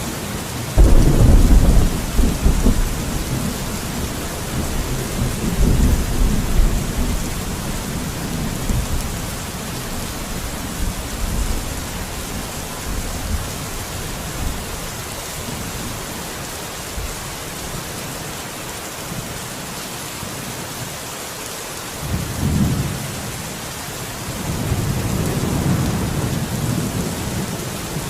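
Steady rain with thunder. A sudden loud thunderclap about a second in rolls on as a rumble for several seconds, and further rumbles come near the end.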